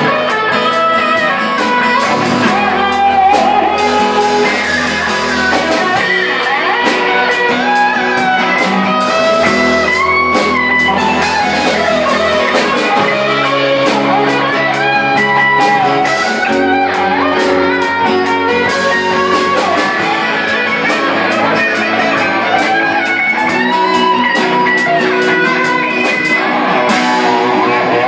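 Electric guitar playing an instrumental rock lead line over bass and drums. The melody moves through bent and vibrato notes above a bass line that steps between held notes.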